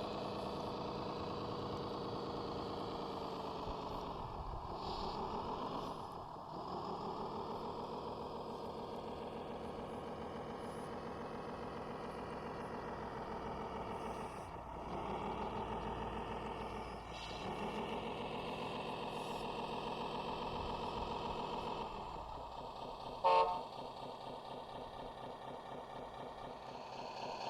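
Radio-controlled trucks running, with an engine-like note that drops and climbs again several times. A short horn toot sounds near the end.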